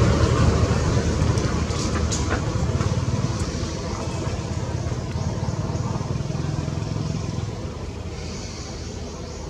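A motor vehicle's engine rumble, fading gradually as it moves away, with a few faint clicks in the first couple of seconds.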